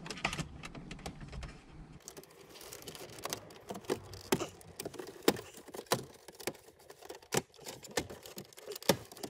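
Irregular sharp clicks and knocks of Toyota Prius plastic dashboard trim being handled and pried loose around the centre console and navigation unit. The clicks begin about two seconds in and come one or two a second.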